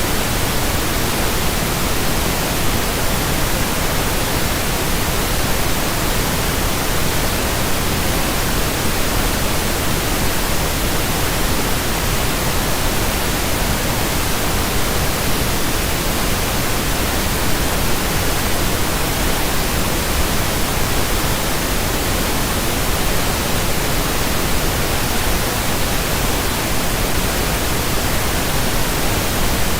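Steady pink noise: an even, unchanging hiss across all pitches, deeper and softer-edged than white noise.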